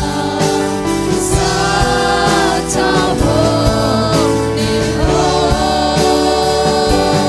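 Live church worship music: singers on microphones lead a Zomi (Tedim Chin) worship song over a band with keyboard and guitar and a steady beat.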